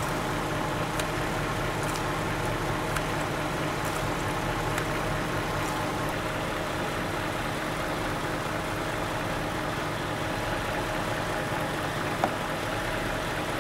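The BMW 545i's 4.4-litre V8 idling steadily, warmed up to operating temperature, with a few faint clicks over it and one brief sharp sound near the end.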